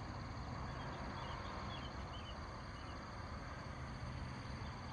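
Insects trilling steadily in a high, even chorus, with a bird giving a run of short chirps in the first few seconds and a few more near the end.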